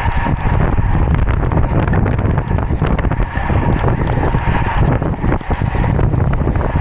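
Loud, steady wind buffeting the microphone of a road cyclist's action camera as the bike rolls at speed, a deep fluttering rush.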